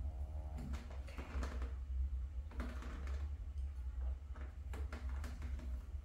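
Small pottery tools scraping and clicking as they are worked against the pot and handled at the wheel: about half a dozen short, scratchy clicks over a steady low hum.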